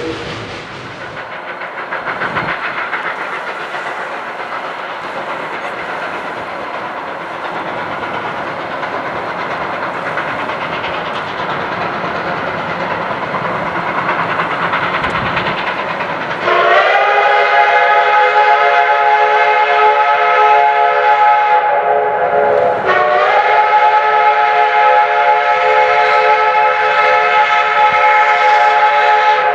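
Geared steam locomotive working upgrade, its rapid exhaust beats growing louder as it approaches. Then a chime steam whistle blows two long blasts, each rising in pitch at the start: one about halfway in, and a longer one after a brief break.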